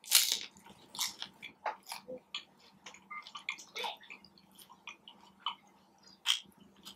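Close-miked crunchy bite into a crispy fried tortilla piece, the loudest sound, right at the start, followed by steady chewing with many small crackles and wet mouth clicks.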